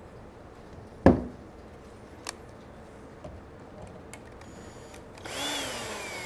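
A sharp knock about a second in, then near the end a power drill starts and runs with a whine that drops in pitch and then holds steady, loosening the screw that holds the table brace to the chair arm.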